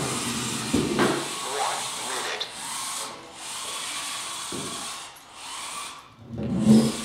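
Small electric drive motors of FTC competition robots whining as the robots drive across the field, with a gearbox whir under a steady hiss.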